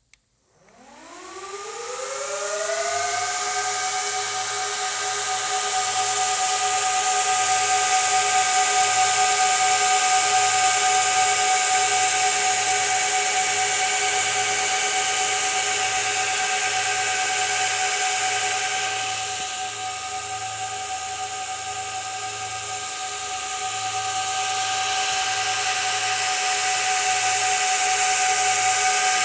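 An IBM System x3650 M3 server's cooling fans spin up at power-on for its first boot. After a click, a whine climbs steeply over about three seconds, then holds as a loud, steady whir with several fixed tones and a rushing hiss. The whir eases about two-thirds of the way through and then rises again.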